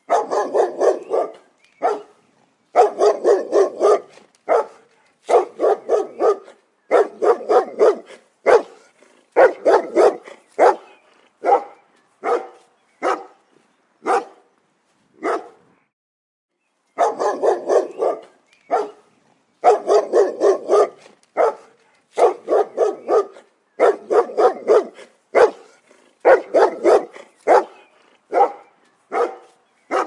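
Dogs barking in quick runs of barks with short pauses between the runs, and a break of about a second and a half about halfway through.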